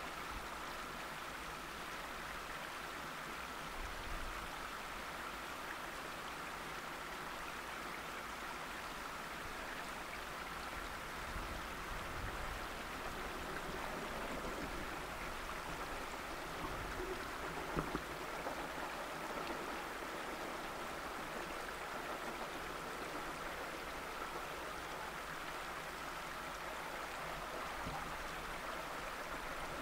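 Steady rushing outdoor background noise with a faint, high, steady tone; the steam locomotive is too far off for any chuffing to stand out.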